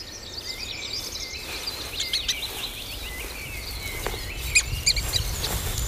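Forest ambience of birds chirping and twittering over a low rumble, fading in at the start, with a few short sharp clicks near the middle.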